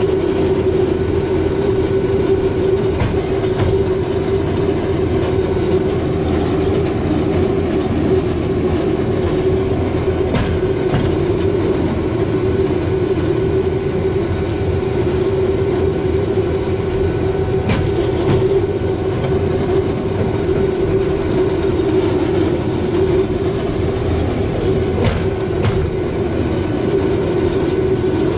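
Rail bike's steel wheels rolling along the track: a steady rumble and hum, with a sharp click about every seven seconds as the wheels pass over rail joints.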